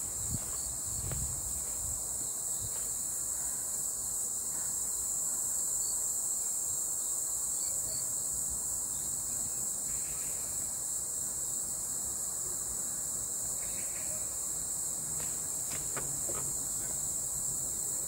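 A steady, high-pitched chorus of insects, with a few soft footfalls near the start.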